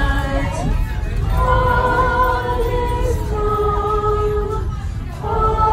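A carriage full of passengers singing a Christmas song together in long, held notes, women's and children's voices mixed, over a steady low rumble.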